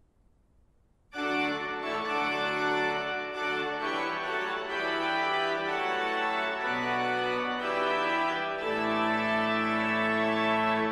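Pipe organ playing loud sustained full chords with low pedal notes, starting abruptly about a second in, after a brief hush.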